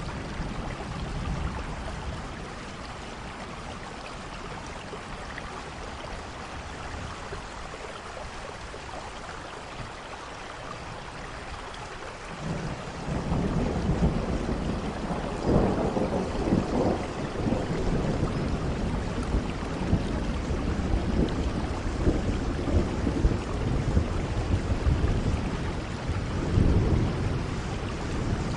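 Steady rain falling. About halfway through, a low thunder rumble comes in and keeps rolling, swelling and easing several times.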